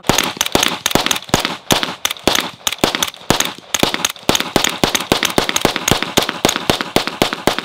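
Rapid fire from a Steyr AUG rifle: a long, uneven string of sharp shots, about five a second, with echo between them.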